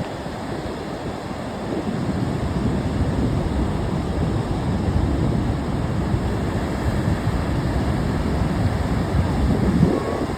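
Ocean surf: waves rolling in and washing ashore as a steady rushing that swells from about two seconds in, with a louder surge near the end.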